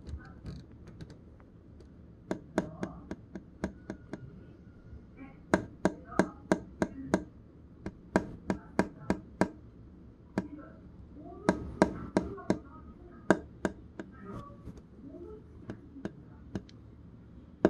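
A fingertip tapping on the clear plastic wall of a turtle tank: runs of sharp clicks, several a second, in groups with short pauses between them.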